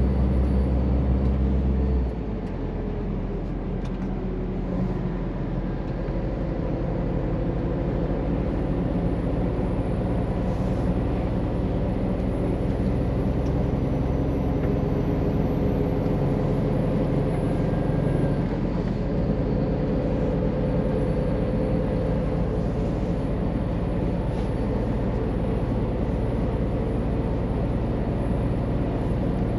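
Loaded Scania truck's engine running on the road, heard from inside the cab, with a steady hum and road noise. About two seconds in, the deep engine note drops suddenly, then carries on steadily with small shifts in pitch.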